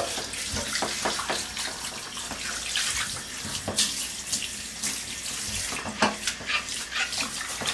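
Water spraying from a handheld bath sprayer onto a puppy and splashing in a bathtub: a steady hiss broken by irregular splashes.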